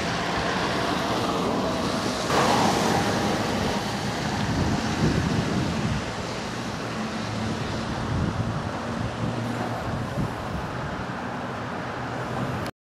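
Steady outdoor rush of wind buffeting the microphone, with rain hiss, swelling louder about two seconds in and cutting off abruptly near the end.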